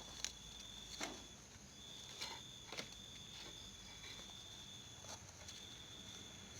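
Faint background sound: a thin, high, steady tone that stops and starts again several times, with a few soft clicks scattered through it.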